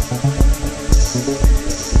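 Electronic dance music with a steady heavy kick drum, about two beats a second, and synth notes between the beats.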